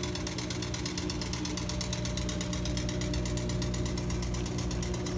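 Top-loading impeller washing machine spinning: a steady motor hum with a fast, even rattle over it, a sound the owner finds worrying though the machine is not shaking or walking across the floor.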